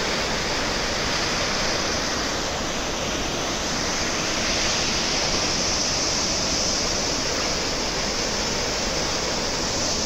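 Steady rush of the Aharbal waterfall, white water pouring down a rocky gorge: an even, unbroken hiss of falling water.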